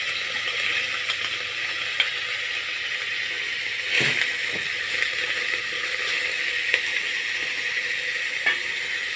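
Potato peel strips and sliced onion frying in vegetable oil in a pan, a steady sizzle. A few light knocks sound over it, the loudest about four seconds in.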